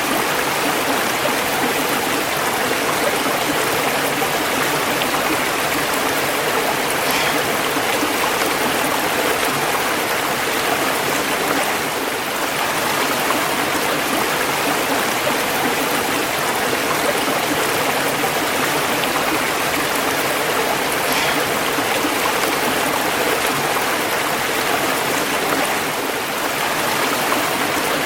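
Running water rushing steadily, an even, continuous wash of noise with no breaks.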